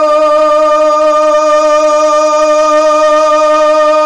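Male naat reciter holding one long, steady sung note into a microphone, unaccompanied, sustaining the last syllable of a line.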